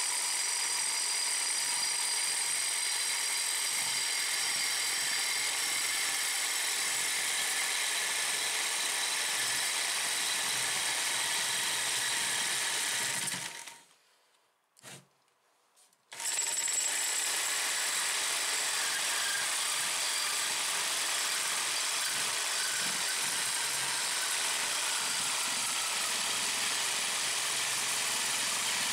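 Jigsaw running steadily while its reciprocating hacksaw blade cuts through a thin-walled rectangular steel tube, with the overlong, untrimmed blade rattling as it vibrates. The sound stops for about two seconds midway, then the cut resumes.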